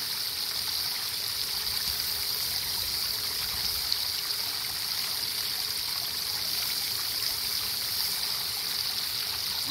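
Garden-hose spray nozzle showering water onto a 1045 steel hammer head and splashing into a bucket of water, a steady hiss: the hammer is being quenched to harden it.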